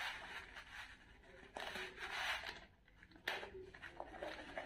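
Zip of a small hard-shell carrying case being worked open, faint and scratchy in short strokes, with a sharp click about three seconds in.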